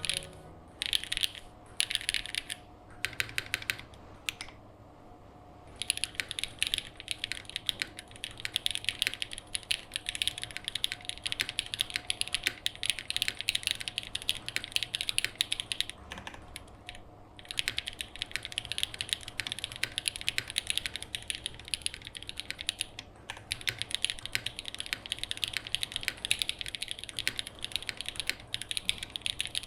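Mechanical keyboard with lubed Jieum V2 switches, aluminium plate, GMK Nord keycaps and no case foam, being typed on. A few short bursts of keystrokes come first, then continuous fast typing with one brief pause partway through.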